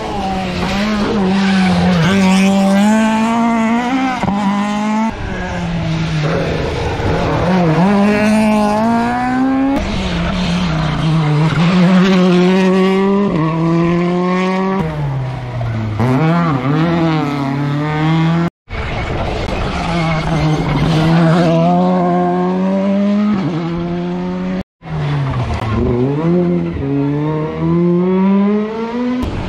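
Rally car engines revving hard through the gears as the cars pass on a tarmac stage. The pitch climbs and drops with each gear change, with breaks between several cars in succession.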